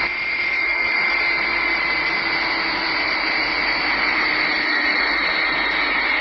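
Four-engine jet airliner's engines running as it rolls along the runway after touching down: a steady rushing noise with a high whine and a lower hum, both sinking slowly in pitch.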